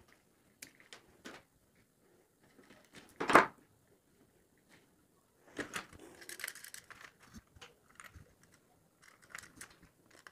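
Scattered small clicks and taps of hand tools and copper wire being handled on a switch-board panel, with one sharp click about three seconds in. After that comes a run of faint ticking and scraping as a screwdriver fastens the wire in the switch's brass terminal screw.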